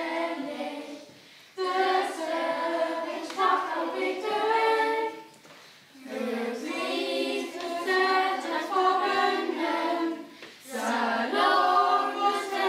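Children's choir singing a cappella in Sölring, the North Frisian dialect of Sylt. It sings in phrases with short pauses between them, about a second in, near the middle and about ten seconds in.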